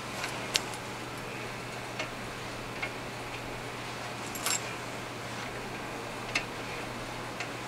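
Scattered sharp clicks, about seven and one of them doubled near the middle, from a Time-Sert tap in a T-handle tap wrench being turned by hand. The tap is cutting new threads in an aluminium engine block, over a steady low hum.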